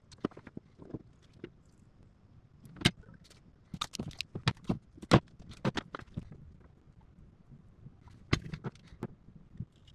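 Handling noise from working on a battery pack on a workbench: irregular sharp clicks and taps, bunched in a quick run in the middle and again near the end.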